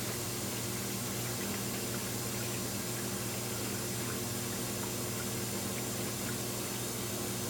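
GE front-load washer filling with water on its pressure-switch test: a steady rush of water entering the machine, with a steady low hum under it.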